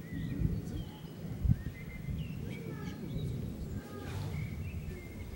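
Small birds chirping and whistling in short, scattered phrases in the woods, over a low, uneven rumble of wind on the microphone.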